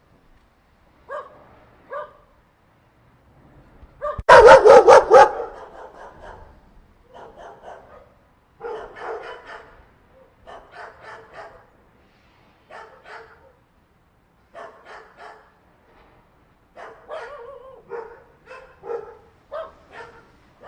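Several dogs fighting, barking in short scattered bursts, with a much louder flurry of about five rapid barks around four seconds in.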